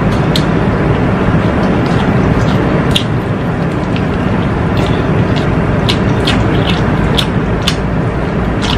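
Close-up eating sounds: chewing and lip-smacking on fried chicken and rice, heard as short sharp wet clicks about once a second, over a loud steady low rushing noise.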